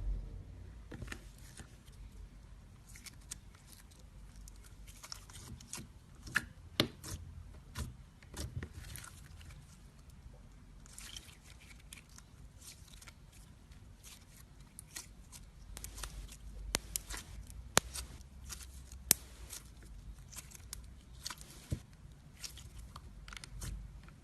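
Slime being worked by hand, making scattered sharp sticky clicks and crackles, thicker in two stretches.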